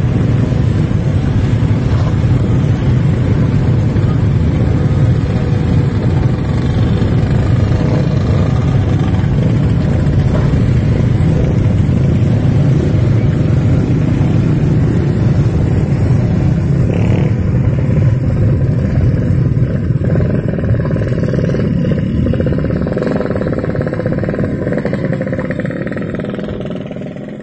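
Heavy stream of small-engine motorcycles and scooters riding past close by, a steady dense blend of engine noise that fades out over the last second or so.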